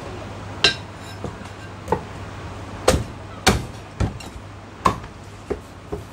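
Heavy cleaver chopping through a roast bird onto a thick round wooden chopping block: about nine sharp chops at an uneven pace.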